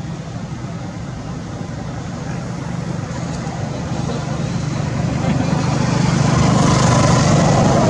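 A motor vehicle approaching along a road, its engine hum and tyre noise growing steadily louder and loudest near the end.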